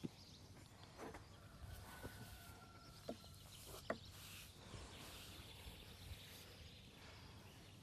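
Near silence: faint outdoor background with a few soft clicks and a faint steady tone lasting about a second and a half.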